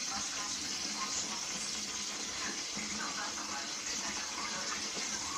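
A steady hiss, with faint voices in the background.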